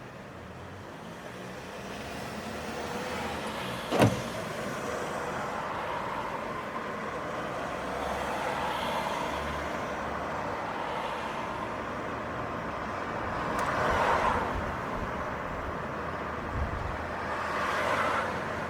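City street traffic: cars driving past, swelling as they pass twice near the end, with a single sharp knock about four seconds in.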